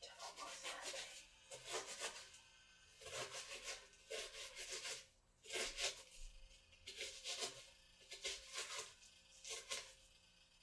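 Chopped red onion pieces being scooped and shifted by hand, rustling and crackling in about eight short, irregular bursts.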